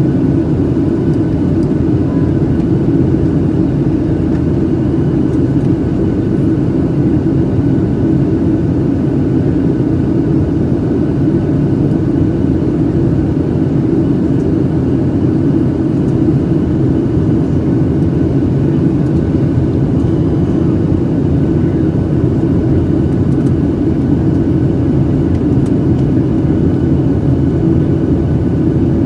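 Steady cabin noise of a Boeing 737-800 in flight, heard from a window seat over the left wing: a constant low rush of airflow and the drone of its CFM56-7B engines, with faint steady whining tones above it.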